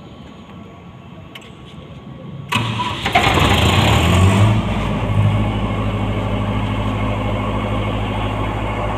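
Perkins diesel engine of a 20 kVA generator set starting: electric cranking begins suddenly about two and a half seconds in, the engine catches within a couple of seconds, then settles into a steady run.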